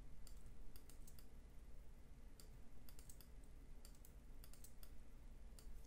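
Faint, irregular clicking of a computer keyboard and mouse: scattered single clicks and small clusters over a low, steady room hum.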